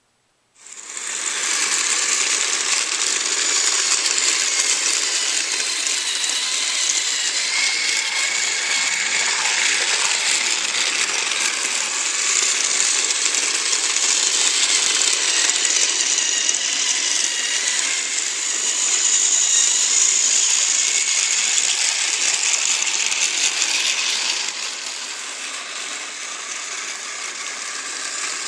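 Battery-powered Trackmaster toy engine running along plastic track pulling its trucks: a steady whirring, rattling motor-and-gear noise that starts suddenly about half a second in and gets somewhat quieter for the last few seconds.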